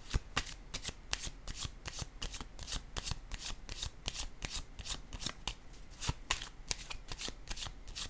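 A deck of tarot cards being shuffled by hand: a steady run of short card swishes, about five a second.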